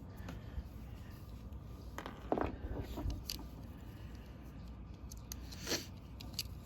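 Small scrapes and clicks of plastic robot-vacuum parts being handled, a few short scratchy sounds with the loudest about two seconds in and another near the end.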